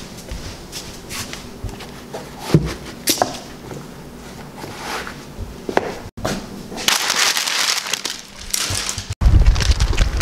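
Scattered knocks, clicks and rustling from a handheld camera being carried across a wooden floor, with footsteps. About nine seconds in the sound cuts to wind buffeting the microphone.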